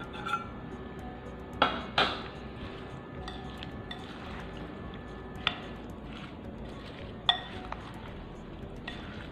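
A metal spoon stirring oil into chopped mango pickle in a glass bowl, clinking against the glass now and then. The loudest are two sharp clinks close together about a second and a half in.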